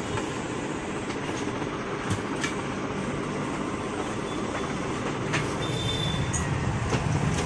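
Steady background noise of a shop open to a busy street, an even hiss and rumble with a few light clicks and knocks.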